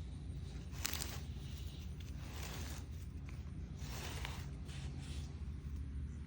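Rustling and scraping handling noise in four or five short bursts over a low steady rumble.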